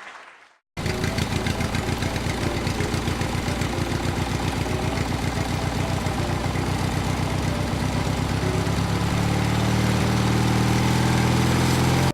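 Vehicle engine sound effect that cuts in under a second in and runs steadily with a fast, even pulse, growing a little louder near the end.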